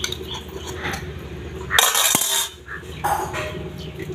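Metal skewer clicking and scraping on snail shells as the meat is picked out over a steel pot, with one louder clatter about two seconds in.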